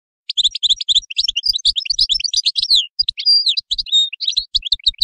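European goldfinch singing: a fast, twittering run of varied high notes that starts just after the beginning, with a few longer held and sliding notes partway through.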